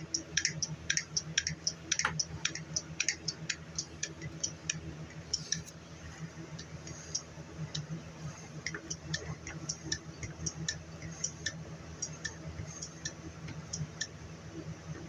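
Handheld hydraulic crimper being pumped with its spring-return handle, clicking about two to three times a second as the die closes on a lug on 2/0 AWG cable. The clicks become fainter and sparser after about five seconds.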